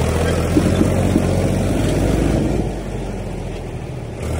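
Powertrac tractor's diesel engine running hard under load as it strains to pull itself and its trolley out of soft mud where it is stuck, easing off about three seconds in.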